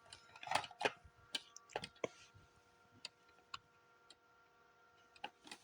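Faint, irregular clicks and taps of hard plastic as fire alarm horn-strobe shells, strobe lenses and their snap clips are handled and pressed together, about a dozen in all with a pause past the middle.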